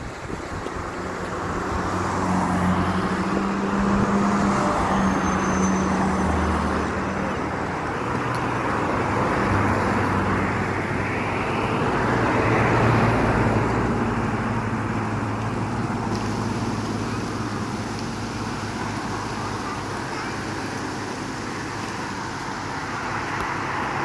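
A car driving along a road: steady engine hum and tyre noise that swell and ease slightly without stopping.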